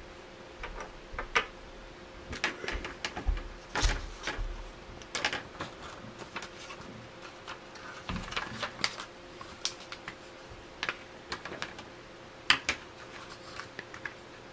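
Plastic building bricks clicking and rattling as loose pieces are picked up, sorted and snapped together, in irregular sharp clicks with a few louder clacks, over a faint steady hum.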